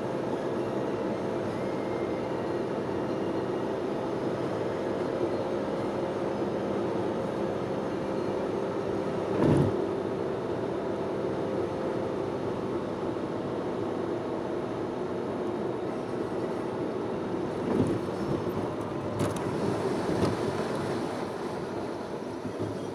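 Campfire burning with a steady hiss and rumble, and a few sharp crackles and pops about halfway through and again near the end.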